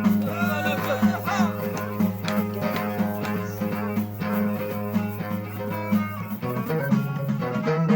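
Music played on string instruments: plucked strings over a steady low held note, with a gliding melody line near the start. The low note changes pitch about six and a half seconds in.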